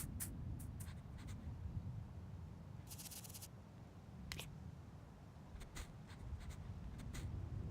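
Scattered scratching and scraping foley strokes with sharp little clicks, a quick flurry of scratches about three seconds in, over a low steady rumble.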